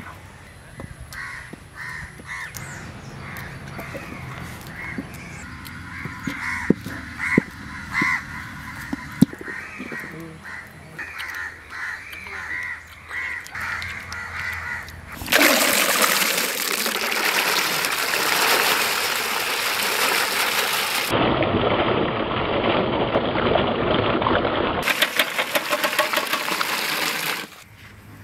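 Crows cawing over and over, about two calls a second. About halfway through, a loud steady rush of water starts: water pouring and splashing as the grapes are washed. It stops abruptly shortly before the end.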